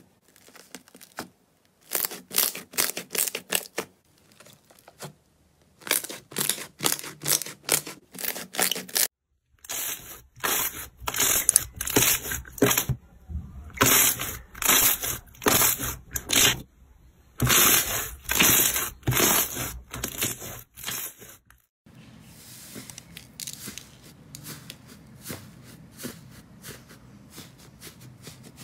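Slime being pressed and squeezed by hand: runs of sticky pops and clicks a second or two long, with short pauses between them. After about twenty seconds the sound turns into a quieter, steadier squishing.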